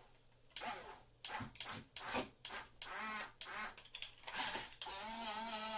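Small electric gear motors of a toy-grade RC excavator running in short on-off bursts with a whirring, scraping sound as its functions are clicked on and off. Near the end a steady hum of several held tones begins.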